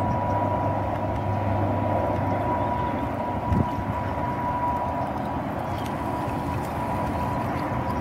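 Large brushed can motor (850–900 size, taken from an electric saw) of a scratch-built RC cruiser model, running on a 2-cell LiPo pack with a steady whine as the boat moves across the water.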